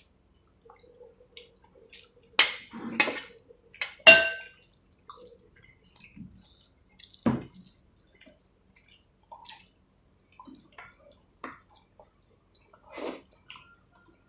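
Wet eating sounds of rice, dal and curry being mixed by hand and eaten: small squelches, smacking and slurping. About four seconds in comes a short, ringing clink, the loudest sound.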